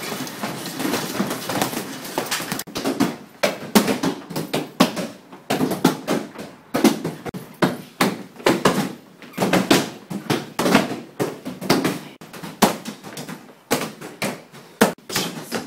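Punches and kicks landing on heavy bags and held kick shields: a rapid, irregular run of thuds and slaps from several people striking at once.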